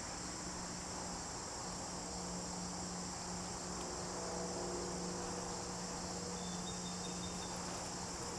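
Insects chirring in a steady, high-pitched chorus, over a low steady hum.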